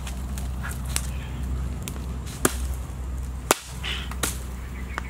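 Dry branches cracking and knocking as firewood is snapped and piled onto a campfire: three loud, sharp cracks in the second half, lighter ticks between them, over a steady low hum.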